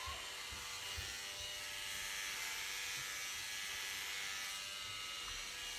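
Corded electric hair clippers running with a steady buzz as they shave a man's head close to the scalp.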